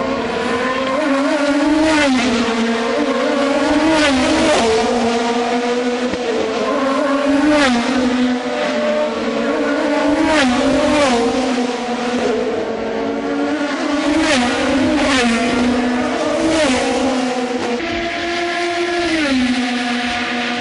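IndyCar race cars' twin-turbo V6 engines on a wet track, several cars going by one after another, each pass with a hiss of tyre spray. The engine note steps up and down in pitch with gear changes.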